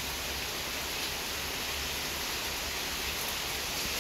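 Steady rain falling on leaves and wet pavement: an even hiss with the odd single drop standing out.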